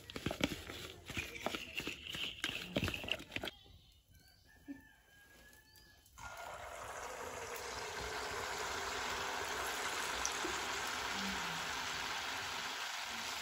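Sel roti batter dropped into hot oil in an iron pan, frying with a steady sizzle that starts suddenly about six seconds in. Before it, a string of clicks and rustles from plastic bags and containers being handled.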